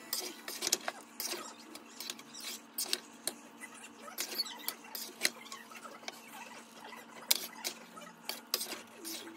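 Slotted metal spatula scraping and clinking against a metal frying pan as thick, soft khichuri is stirred and folded, in irregular strokes, with a steady low hum underneath.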